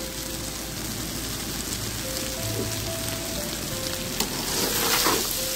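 Steady sizzling of rice and chopped green capsicum cooking in a steel pot, with a steel spatula scraping and stirring through it a few times near the end.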